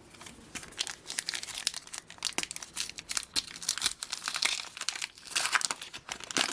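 Crinkling of a Panini Adrenalyn XL trading-card packet wrapper being torn open, a dense run of crackles with a few louder patches.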